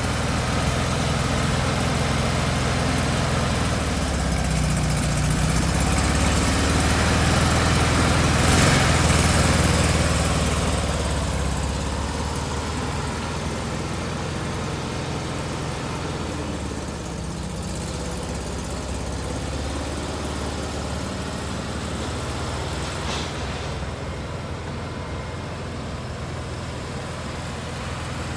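A 1972 VW Super Beetle's air-cooled flat-four engine running steadily, picking up revs a few seconds in and easing back down after about ten seconds to settle into an idle. It is the engine running again after the car had sat for years.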